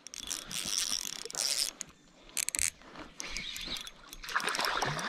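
Water splashing and a stream running, uneven and patchy, with a short gap and scattered clicks and knocks.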